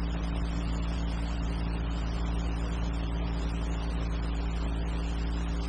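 Steady low hum with an even hiss, the background noise of an old film soundtrack between lines of narration; no clicks or mechanical sounds stand out.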